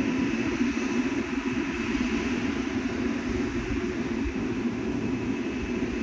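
XCMG motor grader's diesel engine running steadily, an even machine drone with no breaks.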